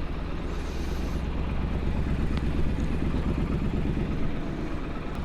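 Triumph Street Scrambler 900's parallel-twin engine running at low speed, a steady low rumble that swells slightly a couple of seconds in and eases off near the end.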